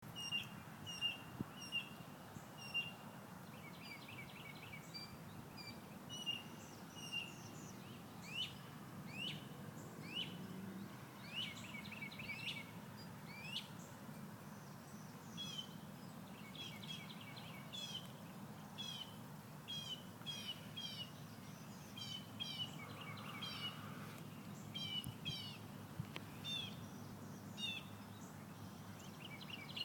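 Several birds chirping and calling in a morning chorus, short repeated notes and quick rising whistles throughout, over a steady low background hum.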